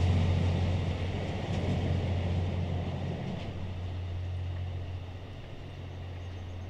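E26 series Cassiopeia sleeper coaches rolling away on the rails, their running noise fading steadily as the tail car recedes.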